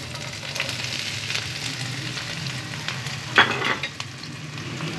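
Chopped vegetables (capsicum, cabbage, onion, green chilli) sizzling and crackling in a little hot oil in a pan, with a brief louder clatter about three and a half seconds in.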